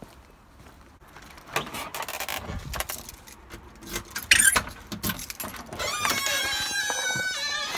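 Keys jangling and rattling in a front-door lock, with a sharp click about four seconds in as the lock turns. Near the end there is a long wavering squeak as the door is pushed open.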